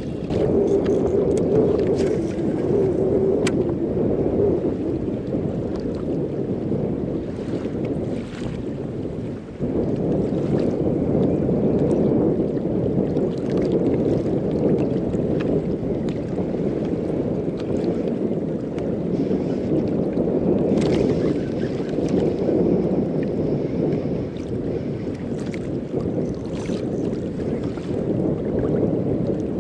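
Steady wind rushing over the microphone on open water, with water lapping at a kayak's hull. A few light clicks and knocks come from fishing gear being handled.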